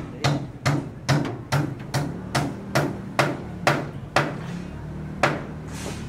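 Hand hammer striking wooden formwork boards in a steady run of about two and a half blows a second for some four seconds, then a single blow about a second later.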